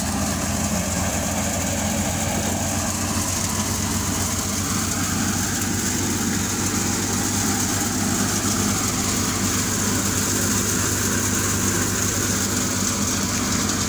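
Massey Ferguson 240 tractor's diesel engine running steadily while driving a wheat thresher. The thresher adds a steady high hiss over the low engine drone.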